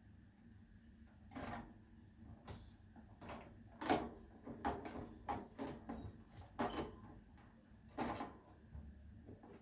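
Irregular knocks, clatters and short scrapes as a birdcage and its parts are handled during cleaning, about a dozen in several seconds, the loudest about four seconds in.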